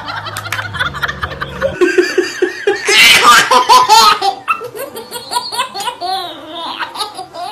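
Baby laughing hard in repeated bursts of giggles, loudest about three to four seconds in.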